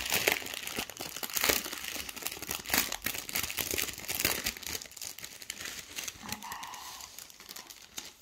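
Plastic packaging bag crinkling and crackling as it is opened and handled, loudest in the first few seconds and thinning out toward the end.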